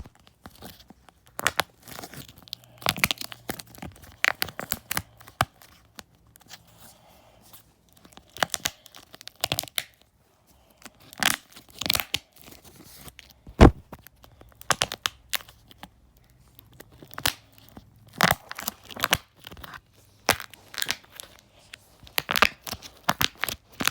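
Homemade dimple fidget toy being pressed and popped over and over: sharp clicks and crinkly snaps in quick clusters, with short pauses between them. One pop just before the middle is louder than the rest.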